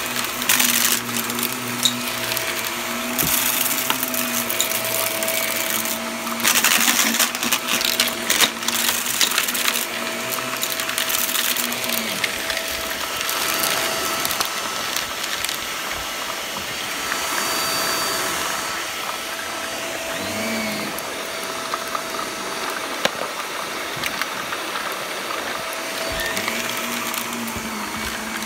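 Shark upright vacuum running on carpet with a steady motor hum, crackling and rattling in bursts through roughly the first nine seconds as it sucks up crunchy debris, then running more smoothly.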